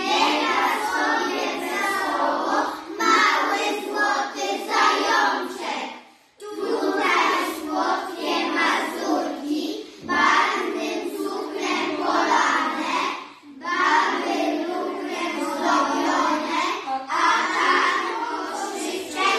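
A class of young children singing a song together in chorus, in phrases with short breaks between them.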